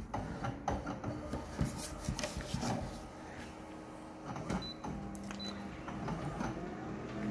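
Colour photocopier scanning an original and starting to print a copy: a run of mechanical clicks and clatter, then a steadier motor hum that builds near the end.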